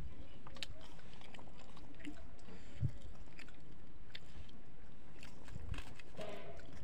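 A man chewing mouthfuls of rice and silver carp close to the microphone, with scattered small wet clicks and smacks.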